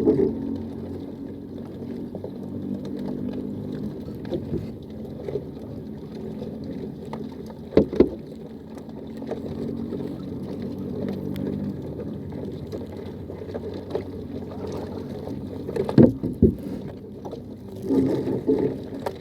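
A boat engine running steadily at low revs, with a few sharp knocks on the boat, one about eight seconds in and two close together about sixteen seconds in.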